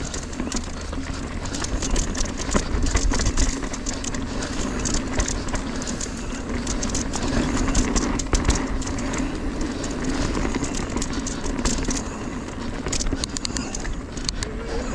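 2023 Ibis Ripmo AF mountain bike descending a rocky dirt trail at speed, with tyres rolling over gravel and stones and constant rattling clicks and knocks from the bike over a steady low hum.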